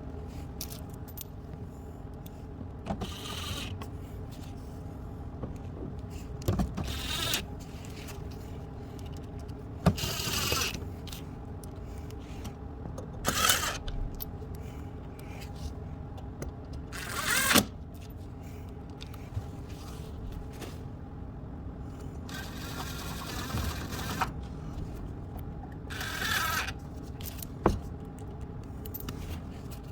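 Screws being driven into the plastic underbody guard in short bursts every few seconds, with a few sharp clicks between them, over a steady low hum.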